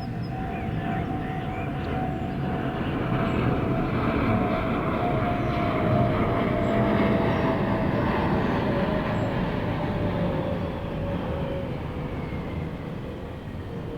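Jet airliner passing low overhead on its landing approach. A broad rumble swells to a peak about midway and then fades, while the engine whine falls slowly in pitch.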